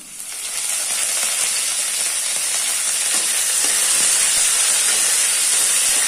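Fresh curry leaves sizzling loudly as they hit hot oil in a kadai with a tempering of garlic, urad dal, mustard, cumin and dried red chillies; the sizzle builds over the first second, then runs steady while a spoon stirs the pan.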